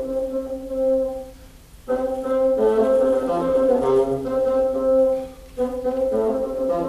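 Wind concert band playing slow sustained chords in phrases, breaking off briefly about one and a half seconds in and again about five seconds in.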